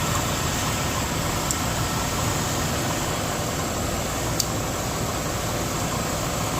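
1998 Chevy Venture's 3.4-litre V6 engine idling steadily, with two light clicks about a second and a half and four and a half seconds in.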